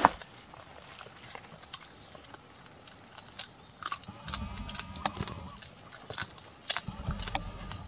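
Close-up eating of roasted duck: crisp clicks and crunches of biting and chewing, and meat and skin being torn apart by hand, with a sharp snap at the very start. Two low rumbles come midway and near the end.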